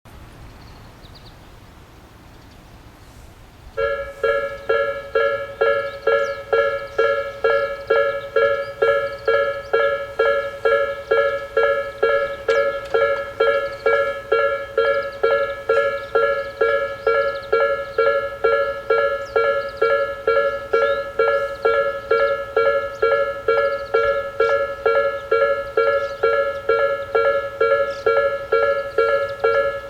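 Japanese railway level crossing alarms, an electronic Nikko-type bell tone, start about four seconds in and ring steadily at about two strokes a second. Two alarms sound together, the farther one slightly lower in pitch, so each stroke comes out as a doubled tone.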